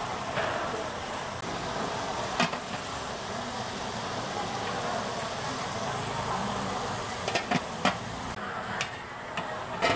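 Steady hiss from a street-food stall's cooking pots, with sharp metal clinks of pots and lids once about two and a half seconds in and a few times near the end.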